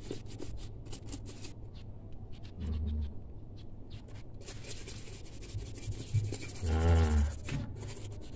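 Short scratchy strokes of a rag and scraper rubbing thinner-softened paint off a Yamaha RX-King engine side cover. About seven seconds in there is a brief pitched vocal sound, louder than the scraping.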